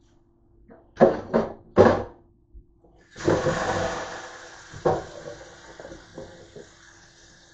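Three quick knocks close together, then a kitchen faucet turned on about three seconds in, its water running into a stainless steel sink, loudest at first and then settling to a lower, steady rush. One more knock comes about five seconds in.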